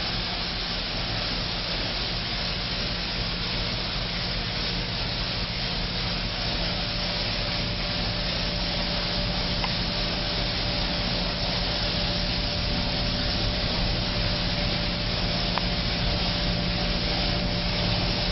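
Manual foam generator spraying cleaning foam: a steady hiss over a low hum, growing slightly louder toward the end, with a faint steady tone joining about six seconds in.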